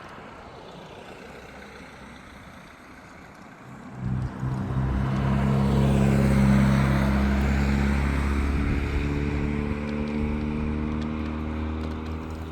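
Road vehicle passing on asphalt: a faint traffic hiss, then about four seconds in an engine hum and tyre noise swell up, loudest around the middle, and ease off slowly as it moves away.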